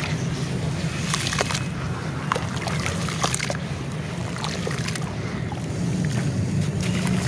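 Hands sloshing and splashing in a tub of water while lumps of wet grey charcoal-clay paste crumble and drop into it, with many small scattered splashes and crackles. A steady low rumble runs underneath.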